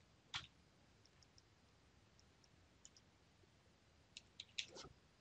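Faint computer keyboard key clicks: a single one about half a second in, then a quick run of several clicks near the end.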